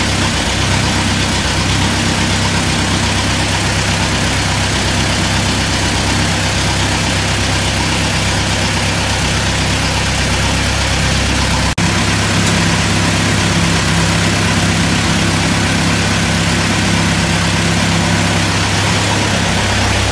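Combine harvester engine running steadily at idle. It drops out for an instant about twelve seconds in, then runs on with a slightly changed tone.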